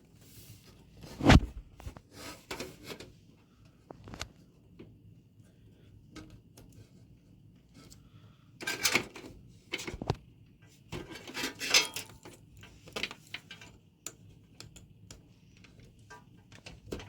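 Scattered clicks, knocks and clatter of hands working inside an open desktop computer case, unplugging a cable from the optical drive and connecting a hard drive. The loudest knock comes about a second in, with busier clatter around the middle and later.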